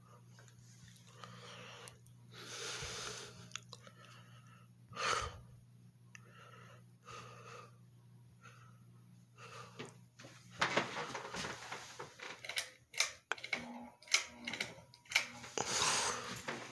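A Hampton Bay Carousel ceiling fan motor running with a steady low hum and buzz, the buzzing and humming of a fan that also wobbles. Breathy swells come and go over it, and a scatter of short clicks and knocks fills the second half.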